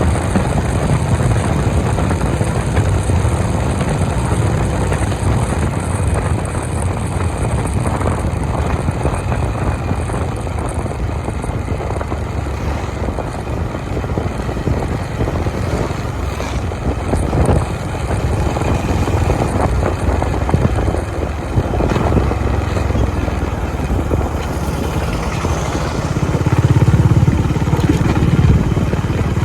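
Honda CB350 motorcycle ridden at highway speed, its engine running steadily, growing somewhat louder near the end.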